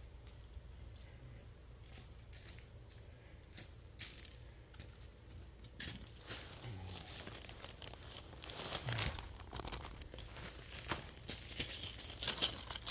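Footsteps crunching through dry fallen maple leaves, scattered crackles at first that grow denser and louder near the end as the walker comes closer.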